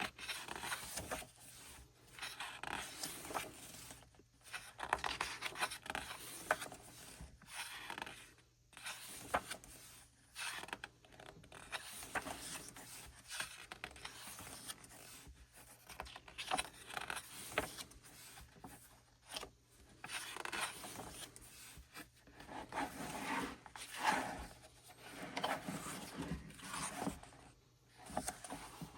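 Pages of a glossy album photo book being turned one after another, with paper sliding and rubbing in short, irregular bursts and brief pauses between turns.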